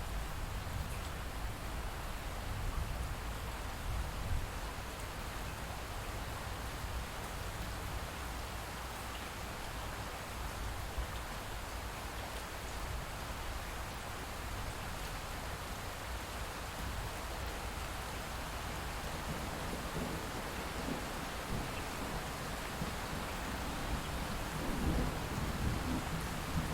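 Light steady rain with distant thunder rumbling low underneath, the rumble swelling in the last several seconds.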